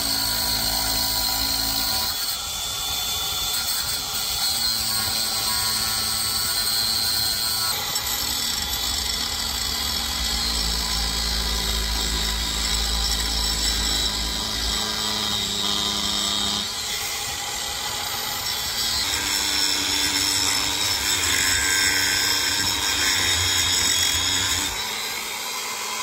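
Angle grinder running steadily and cutting into the metal nose cone of a starter motor to trim away the part that fouls the ring gear. Its tone shifts several times as the disc bites and eases off.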